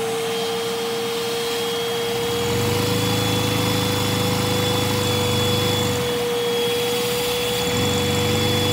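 A vacuum cleaner runs with a steady high whine, supplying the suction that drives a Lego inline-2 vacuum engine. A lower, rougher running sound joins about two seconds in, drops out briefly around six seconds and returns near eight.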